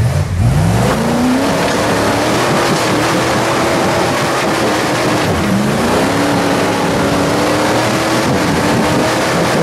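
Rock-crawling buggy's engine revving hard on a steep climb. The pitch rises to high revs about a second in and is held there, drops briefly about halfway, then climbs back and holds until near the end.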